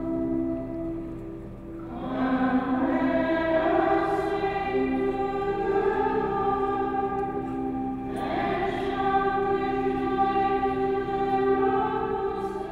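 Choir singing a slow sacred hymn in long held notes, with a short pause for breath about two seconds in.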